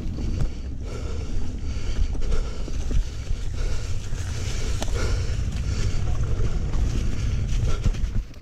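Mountain bike ridden along a dirt trail, heard from a rider-mounted camera: a heavy low rumble of wind on the microphone and tyres on dirt and leaves, with scattered clicks and rattles from the bike.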